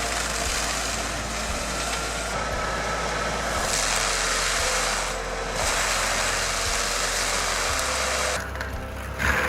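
Forestry mulcher running at work, its engine and cutting drum making a loud, even grinding noise as it chews through a tree stump. The sound dips briefly about five seconds in and changes near the end.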